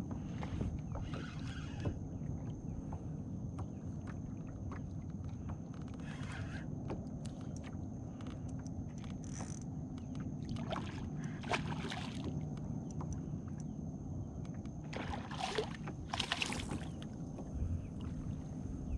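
Water sloshing and splashing around a small boat, in short irregular bursts over a steady low rumble, with a thin high steady tone throughout.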